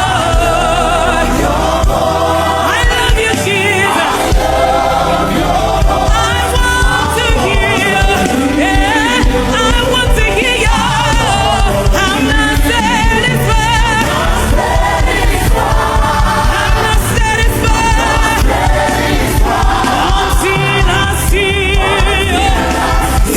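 Gospel worship music: a congregation and choir singing with vibrato over a steady band accompaniment with a regular beat.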